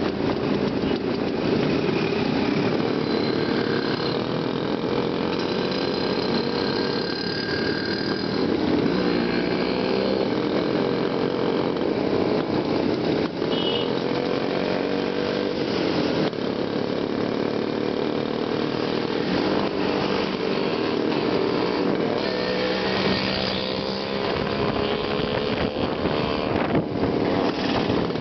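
A pack of Jawa and Yezdi two-stroke motorcycles riding together, many engines running at once, heard from among the bikes. The engine pitches drift up and down as riders change speed.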